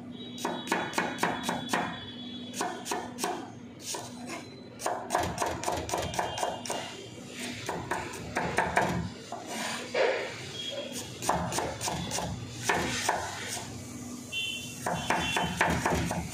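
Chef's knife finely chopping onion on a plastic cutting board: runs of quick, sharp taps broken by short pauses.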